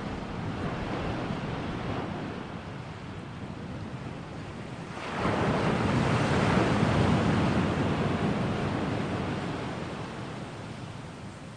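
Ocean surf washing on a shore, a steady rush of waves; a bigger wave surges in about five seconds in and slowly recedes.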